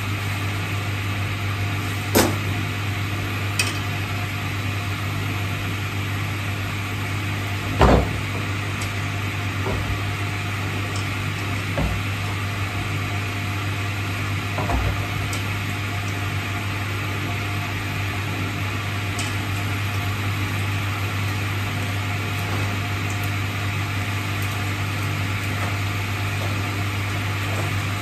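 Steady low electric hum with an even hiss over it, broken by a handful of separate knocks and clicks, the loudest about eight seconds in.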